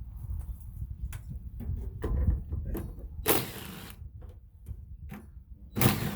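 Hand tools working on a furnace's sheet-metal casing: scattered metallic clicks and knocks, with two short scraping rasps, one about three seconds in and a louder one near the end. A steady low rumble runs underneath.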